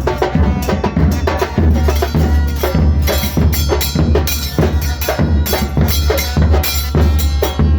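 A band playing music with drums and percussion over a steady deep bass.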